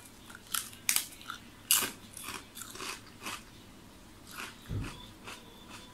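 Crisp crunching bites into a large ridged potato chip, then chewing with softer crunches. The loudest crunch comes just under two seconds in.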